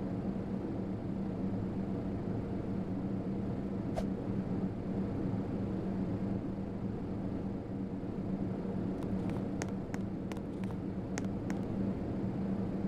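Hampton Bay Windward II ceiling fan running with a steady hum, with a few light clicks about nine to eleven seconds in.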